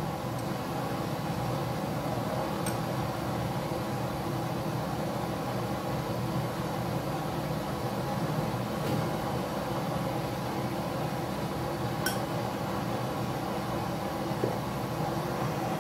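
Steady rushing hum of a gas-fired manakish oven's burners, with a spoon clicking faintly against an aluminium baking tray a few times as za'atar and oil are spread on the dough.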